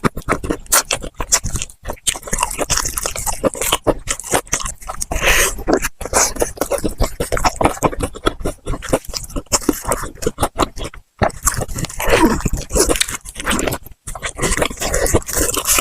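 Close-miked eating: crunching and wet chewing of crispy fried food in a dense run of crackles, broken by brief pauses twice near the end.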